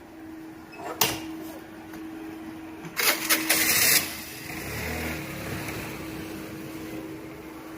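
Street noise with a small engine running: a sharp click about a second in, then a loud hissing burst lasting about a second around three seconds in, followed by a low engine rumble.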